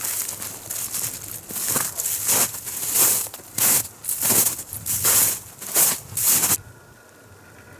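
Footsteps crunching on the spring forest floor, a steady walking pace of about one and a half steps a second, stopping abruptly near the end.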